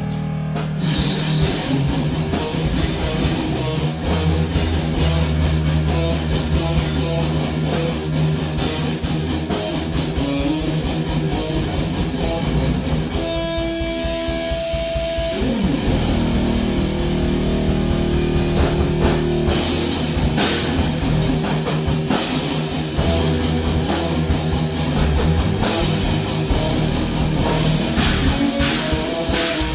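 Live band improvising a rough rock jam built on the two notes E and F, with guitar, bass and drum kit. About halfway through, the low end drops out for a couple of seconds while a single note is held, then the full band comes back in.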